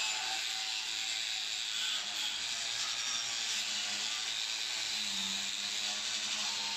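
Handheld electric angle grinder with an abrasive disc running steadily against a painted metal door, scouring off the old paint.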